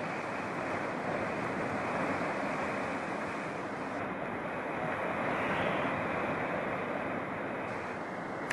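Sea surf breaking and surging over shoreline rocks: a steady rush of churning, foaming water that swells a little about five seconds in.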